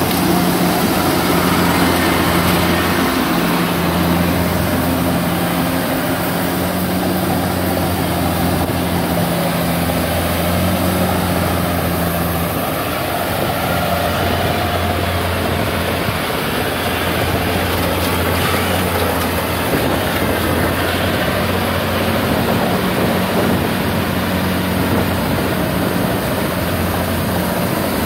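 Kubota DC70 rice combine harvester running steadily while harvesting: the continuous drone of its diesel engine mixed with the noise of the cutting and threshing machinery.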